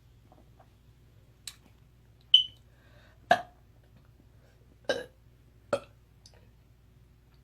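A woman letting out short burps, three brief ones in the second half, spaced a second or so apart. Before them comes a brief high-pitched chirp, the loudest sound here.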